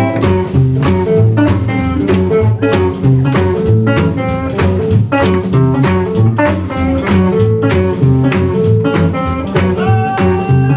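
A band playing blues-jazz style music: guitar over bass and drums, with a steady beat.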